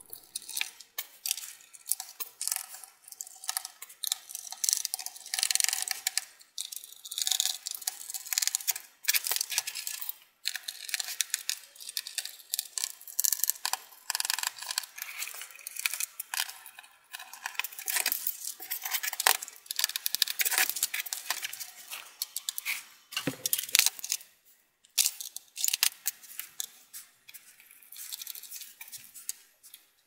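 Small Phillips screwdriver unscrewing the screws of a laptop's bottom panel: a run of scratchy clicks and taps from the driver, screws and case being handled, with one duller knock about three quarters of the way through.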